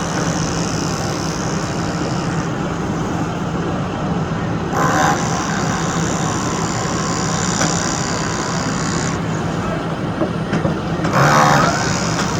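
Heavy construction machinery running steadily with a low engine hum, with two short louder bursts of sound, about five seconds in and near the end.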